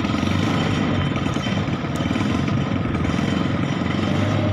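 Small motorcycle engine driving a log-loading winch, running steadily at an even speed.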